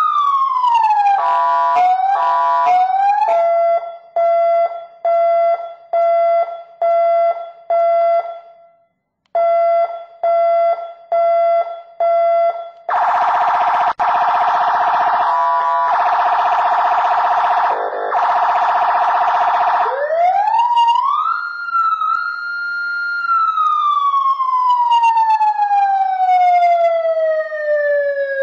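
Federal Signal 200-watt electronic siren cycling through its tones. A falling wail is followed by two short rising chirps, then a steady tone switched on and off about once a second. Next comes a harsh, buzzing horn-like tone for about seven seconds, then a wail that rises quickly and falls slowly.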